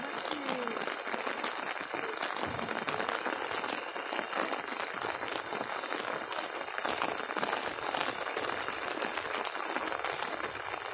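Steady hiss of falling rain with faint scattered drop ticks, even throughout with no rhythm.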